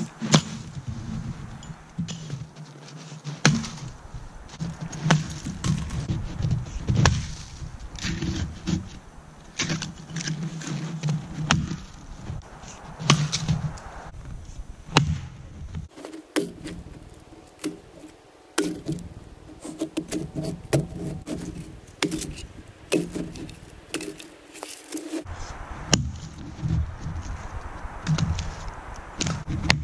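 An axe chopping into wood, with sharp, irregular strikes every second or few, and split pieces of wood knocking and clattering down.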